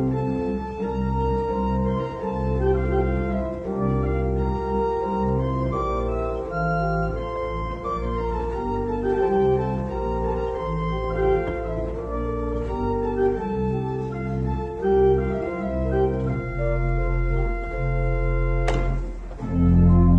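Church organ played on two manuals: sustained chords with a moving upper line over a deep bass. Near the end there is a sharp click, then the organ comes in louder and fuller.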